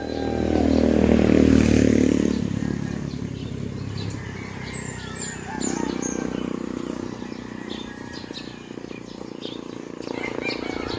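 A vehicle engine passes close by, loudest in the first two seconds and then fading, followed by small birds chirping in the early-morning countryside.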